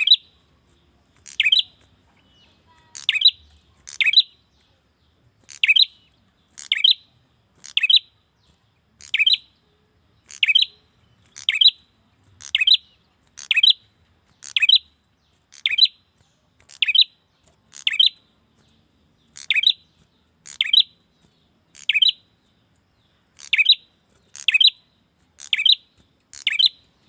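A male prinia (prenjak) calling for a female, repeating a short, sharp chirp steadily about once a second.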